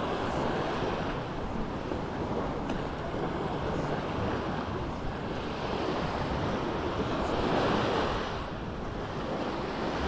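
Small sea waves breaking and washing up on a sand beach, with wind buffeting the microphone; one wave swells loudest about eight seconds in and then falls back.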